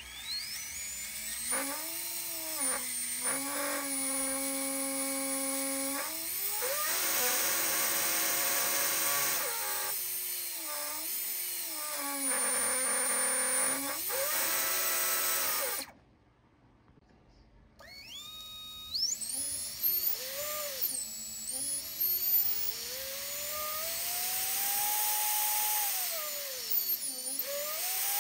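Unpropped 1404-size brushless whoop motors spun up on a quad arm, whining as they step and sweep up and down through speeds. First a HappyModel EX1404 3500kv, which the owner found vibrates badly at certain speeds, causing jello in video. After a brief stop about 16 seconds in comes an iFlight Xing Nano 1404, which runs super smooth.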